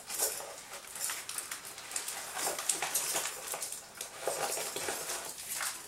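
Plastic packaging crinkling and rustling irregularly as a wrapped bundle of fishing lures is handled and opened.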